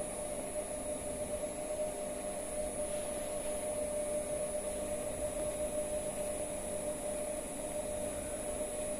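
Permanent magnet synchronous motor running steadily at about 2000 RPM, its maximum rated speed, under closed-loop inverter speed control: an even whir with a constant mid-pitched tone and a thin high whine over it.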